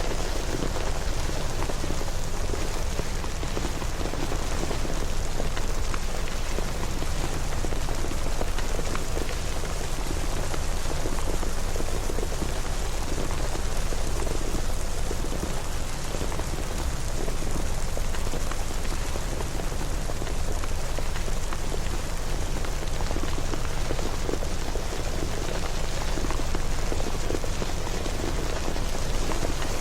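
Steady rain falling and pattering on a surface, an even wash of noise with scattered drop ticks and no rise or fall.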